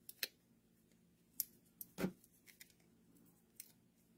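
Faint, scattered small clicks and ticks of fingers handling die-cut cardstock pieces while white adhesive dots are put on a paper tree.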